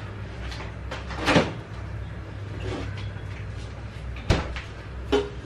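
A few knocks and clunks of kitchen handling, the sharpest about four seconds in, over a steady low hum.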